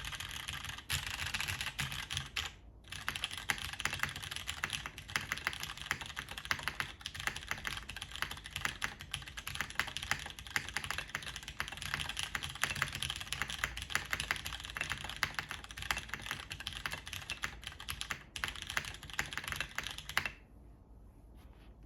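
Fast, continuous typing on a JTD Ovinnik TKL mechanical keyboard with Cherry MX Brown tactile switches on an aluminium plate, under DCS keycaps. There is a brief pause about two and a half seconds in, and the typing stops about twenty seconds in.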